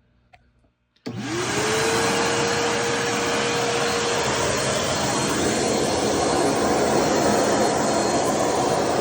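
Vacuum cleaner switched on about a second in: the motor's whine rises quickly to a steady pitch, then it runs steadily with a loud rush of air.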